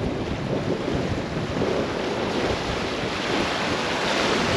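Flowing creek water rushing around a kayak, with wind buffeting the microphone: a steady rush of noise.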